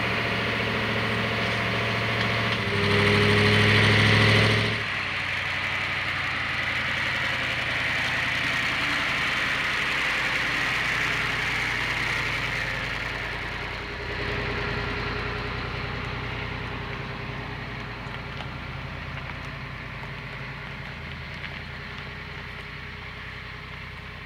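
A truck engine running as it tows a trailer, louder for about two seconds near the start, then running steadily and slowly growing fainter.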